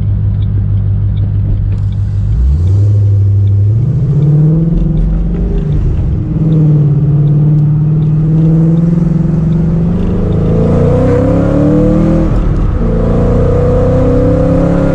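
Kenne Bell-supercharged Mustang's 4.6-litre three-valve V8 running under load, its note stepping up in pitch about three seconds in and holding. From about ten seconds in, several rising tones climb with speed, easing off briefly and climbing again: the rear end howling, a rear end that "howls like crazy" and that the owner goes on to rebuild.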